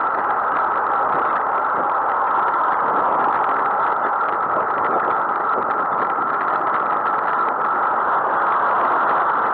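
Steady rushing noise of wind and road from a camera mounted on a moving bicycle, even throughout with no separate events.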